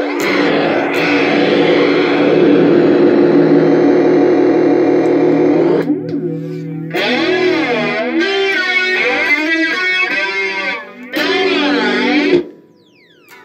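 Electric guitar played through a circuit-bent Joyo Classic Flanger pedal. Sustained notes ring with the flanger on them; after a short break about six seconds in, the sound changes to a swooshing flange that sweeps up and down over the notes, then cuts off near the end.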